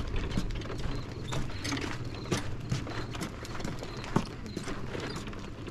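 A sheep's hooves and a person's footsteps on a gravelly road, with a small wagon's wheels rolling and rattling behind. Irregular clicking and crunching over steady road noise.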